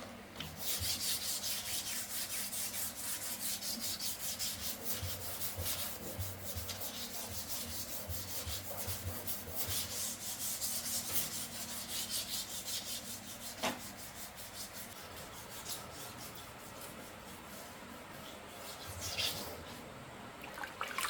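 Fast, repeated abrasive rubbing strokes on rusty metal by hand, several strokes a second. They ease off and become fainter about two-thirds of the way through, with a single sharp knock just before that.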